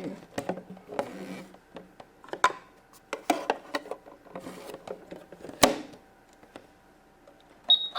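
Plastic toy pieces being handled: scattered light clicks, knocks and rubbing as the pretend popcorn and toy microwave are handled, with one sharp click about five and a half seconds in. A short high electronic beep from the toy starts near the end.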